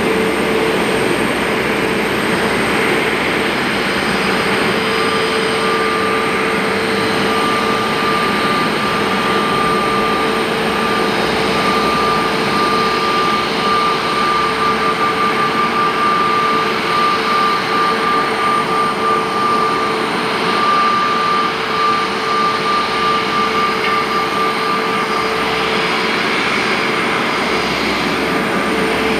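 Airbus A321neo's jet engines running at taxi power: a steady whine and rush, with a higher steady tone that holds through most of the middle stretch.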